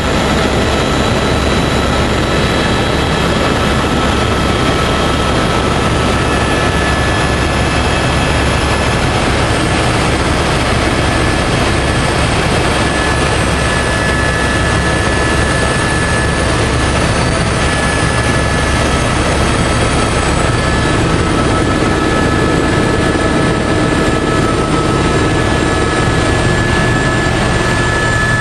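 Eurocopter AS350 B3 helicopter in flight, heard from inside the cabin: the steady, loud whine of its single turboshaft engine, with several high tones held over a low rotor rumble and a constant rush of air.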